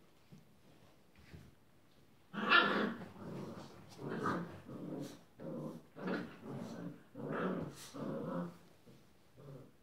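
Six-week-old Rhodesian Ridgeback puppies growling as they play-fight, a run of short growls about every half second beginning a little over two seconds in, the first the loudest.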